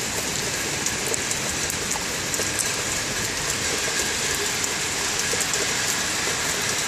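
Heavy rain pouring steadily: an even, dense hiss with scattered sharp ticks of nearby drops.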